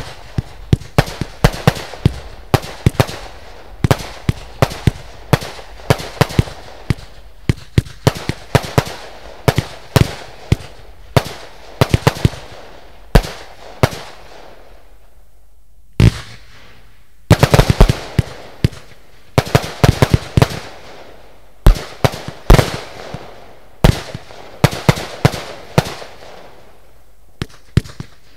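Lesli Crowd Control 130-shot, 25 mm firework cake firing: a steady string of shots launching and bursting with hard bangs. A little past the middle it goes quiet for about two seconds, then a rapid volley follows.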